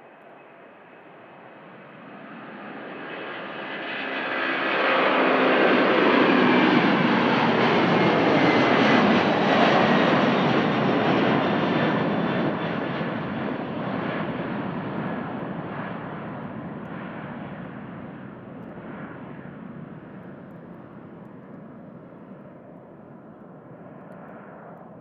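Japan Airlines Boeing 767-300ER's twin turbofan engines at takeoff power. The roar builds to its loudest about five seconds in as the jet passes, with tones sliding down in pitch, then fades away slowly.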